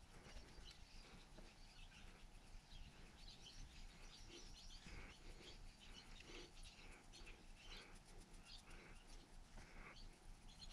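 Near silence: faint room tone, with soft high chirps scattered through it.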